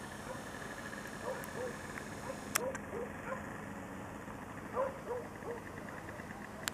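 Distant animal calls: short calls, mostly in pairs, repeating every second or so over a faint background, with a sharp click about two and a half seconds in and another at the end.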